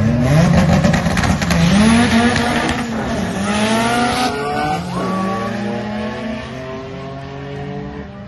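Two sport-compact drag cars, one a 1987 Honda CRX, launching off the line and accelerating hard down the strip. Their engines rev up through the gears, the pitch climbing and dropping back with each shift, then the sound fades as they pull away.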